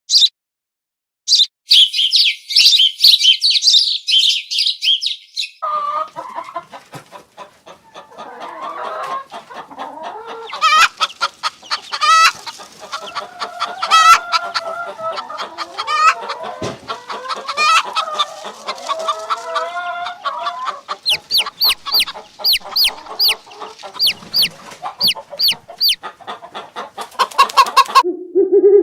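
Domestic chickens clucking, a run of short repeated calls. Near the end there are high-pitched falling peeps like chicks. The first few seconds hold a dense high chirping.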